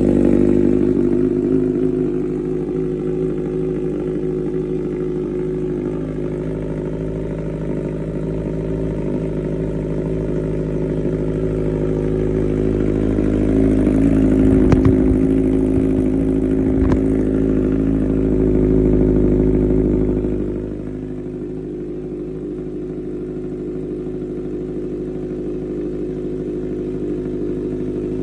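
Kawasaki Z900's inline-four engine idling through a modified aftermarket exhaust, a steady deep burble. It grows louder for several seconds mid-way, with a couple of sharp clicks, then drops back to a quieter idle about twenty seconds in.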